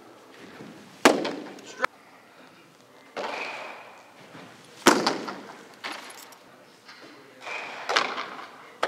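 Baseball pitches smacking into a leather catcher's mitt: three sharp pops, about a second, five seconds and eight seconds in, each with a short echo.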